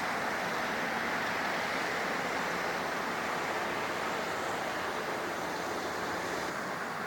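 Steady rushing roar of a jet airliner's engines, easing slightly near the end.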